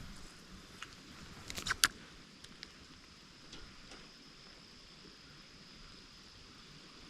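A few sharp clicks about two seconds in, then scattered lighter ticks, from fishing tackle being handled. Under them runs a faint steady hiss with a thin high whine.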